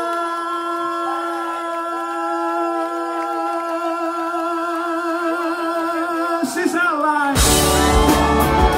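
Live rock band: a long sung note is held with vibrato over sustained chords, then drums, bass and electric guitar come in together about seven seconds in.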